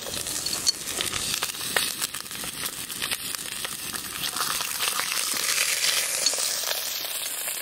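Lamb shanks sizzling as they sear in a very hot cast-iron Dutch oven, a steady fizzing hiss dotted with small crackling spits. A drizzle of oil goes into the pot partway through, and the sizzle fills out a little after it.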